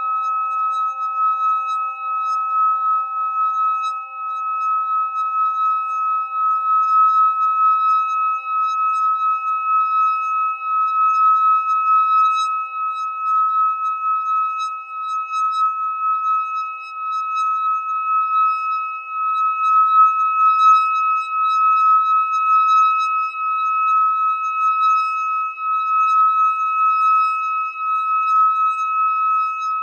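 Hand-held metal singing bowl sung by rubbing a wooden stick around its rim: one steady, high ringing tone held without a break, gently wavering in loudness, over fainter lower and higher overtones.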